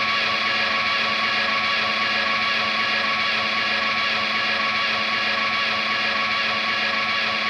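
Steady, unchanging noise drone from an electric guitar rig held through effects and amplifiers: many fixed tones layered over a hiss, with no strummed notes or beats.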